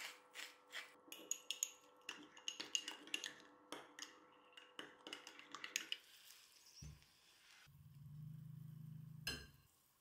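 Hand spice grinder twisted over a small bowl: a quick, irregular run of clicks and crunches for about six seconds. Then a dull thump, a low steady hum for about two seconds, and a last sharp click.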